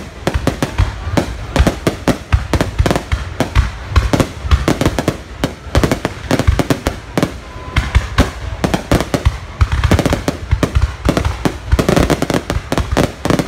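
Barrage of aerial fireworks bursting, a dense run of loud bangs several a second without a break.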